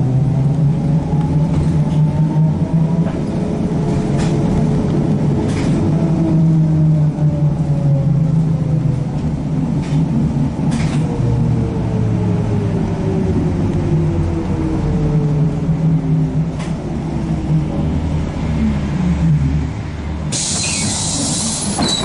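Interior sound of a ZiU-682G-016.02 trolleybus underway: a steady low hum and the electric traction drive's whine, rising in pitch as it speeds up and then gliding slowly down as it slows. About two seconds before the end, compressed air hisses.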